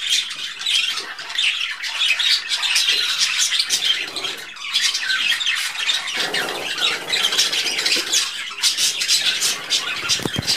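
Many budgerigars chattering together: a dense, continuous mix of short chirps, warbles and harsh squawks.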